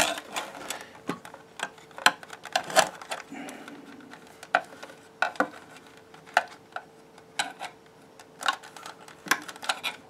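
Irregular light clicks and taps of a poking tool against a plastic fan housing and fan frame as a wire is pushed down into place.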